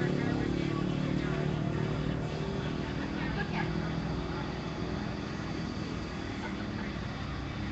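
A motor vehicle engine running steadily, strongest at first and slowly fading, over a noisy background.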